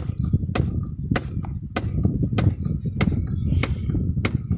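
Steady, even knocking from the heater blower and air-door housing behind the glove box of a 2001 GMC Yukon XL, about one knock every half second or so over a low rumble. The knocking keeps going with the fuses pulled and the vents stuck on one setting, which the owners suspect is a faulty HVAC door actuator.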